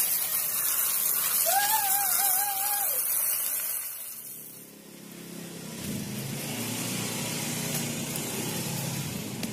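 Hose water spraying onto a pile of lead plates and grids from scrapped car batteries, a steady hiss, with a short warbling tone about two seconds in; the spray stops about four and a half seconds in. From about six seconds a lower, even rushing noise with a few light clicks follows.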